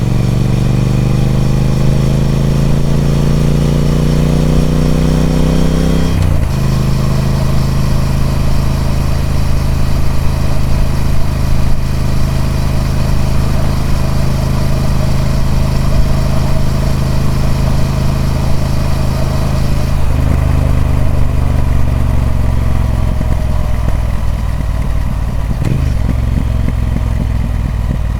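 Triumph Speed Twin 1200's 1200cc parallel-twin engine through its stock exhaust, under way. The pitch rises as the bike pulls through a gear for about six seconds, breaks at an upshift, then holds steady while cruising. The note changes again about twenty seconds in and settles lower.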